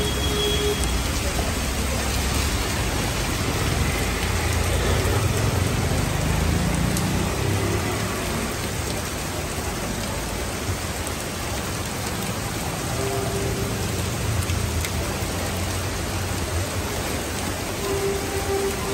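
Heavy rain pouring steadily onto a paved street, splashing on the flooded road surface. A low rumble sits under it for the first several seconds.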